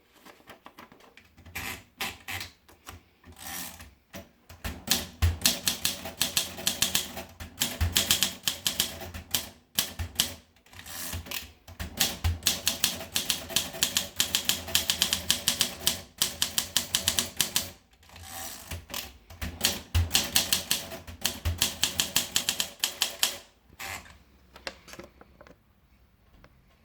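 Olympia SM4 manual portable typewriter being typed on: rapid key strikes in runs of several seconds, with short pauses between them. The typing stops a couple of seconds before the end.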